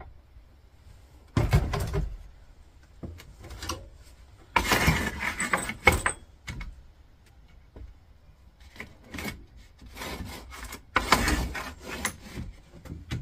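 Clatter, knocks and scraping as things are shifted about on a cluttered workbench: a plastic tool case is handled and a kitchen scale is set down. Three main bursts, about a second and a half in, about five seconds in and near the end, with scattered small clicks between them.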